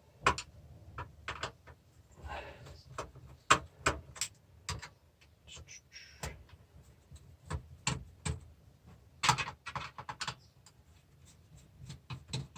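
Irregular clicks, knocks and light rattles of hands handling and pulling at parts inside an old DVD player being taken apart, with a short rustle now and then.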